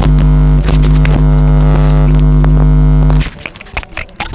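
Loud, steady electrical hum in the sound system, a low buzz that starts abruptly and cuts off suddenly about three seconds in, followed by a few faint clicks.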